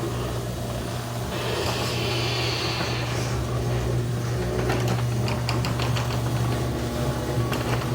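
Garage door opener motor running steadily as it drives the door, a constant low hum with a brief hiss early on and a run of light clicks and rattles about halfway through.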